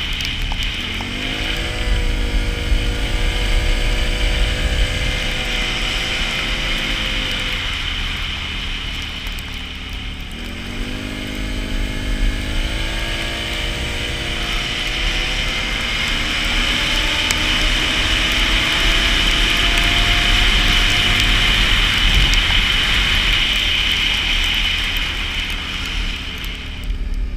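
Can-Am Renegade 570 ATV's V-twin engine pulling up in revs as it accelerates about a second in, easing off around eight to ten seconds, then climbing again and rising steadily before backing off near the end. Wind rumbles on the microphone underneath.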